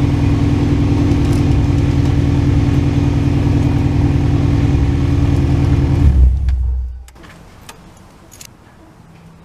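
Nissan 240SX's engine running steadily, then shut off: a brief low shudder about six seconds in, and the sound dies away by about seven seconds in. A few faint clicks follow.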